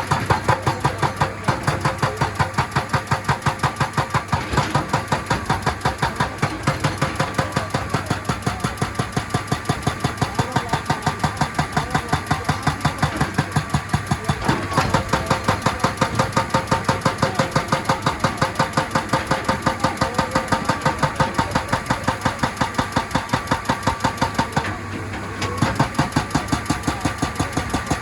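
Excavator-mounted hydraulic rock breaker hammering on rock, a fast even train of blows about five a second over the running excavator engine, stopping briefly near the end and then starting again.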